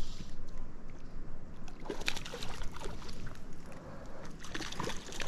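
Small irregular splashes and drips of lake water as a hooked fish is brought in at the surface, starting about two seconds in.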